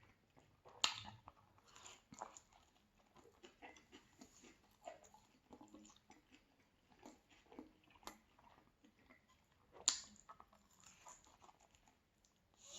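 Close-miked chewing of pizza, with soft wet clicks and crunches in an uneven rhythm, and two louder sharp clicks, one about a second in and one near ten seconds.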